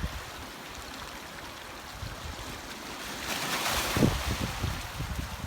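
Sea waves washing ashore, with one wave breaking and hissing about three seconds in. Wind buffets the microphone in low thumps near the end.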